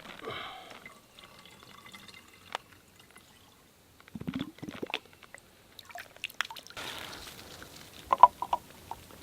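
Camp cooking gear being handled: scattered clicks and knocks, liquid pouring briefly, and a few quick light taps near the end.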